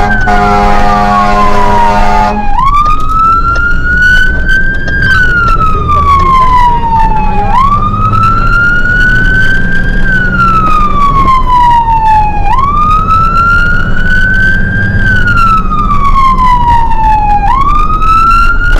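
Fire engine's siren wailing, its pitch rising and falling in a slow cycle about every five seconds, with a horn blaring for the first two seconds or so and the engine running underneath.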